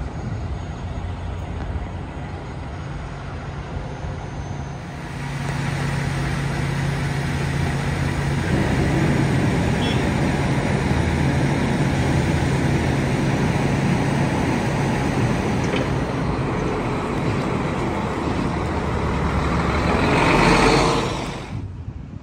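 Heavy diesel vehicle engine idling close by, a steady low hum that grows louder about five seconds in, peaks near the end, then drops off suddenly.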